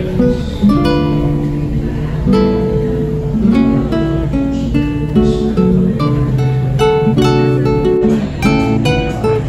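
Background music: an acoustic guitar playing a picked melody over chords, at a steady level.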